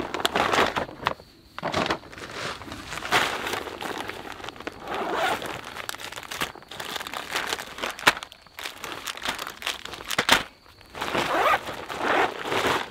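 Plastic zip-top bag and a freeze-dried meal pouch crinkling as they are handled, then a stuff sack rustling as the bag is packed into it, in a run of irregular crackles and rustles.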